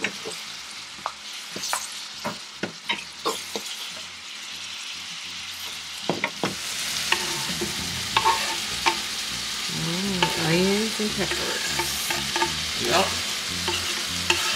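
Ground beef frying in a skillet, stirred with a wooden spoon that clicks and scrapes against the pan. About six seconds in the sizzle grows louder and fuller as chopped onion and green bell pepper are scraped in off a wooden cutting board with a knife.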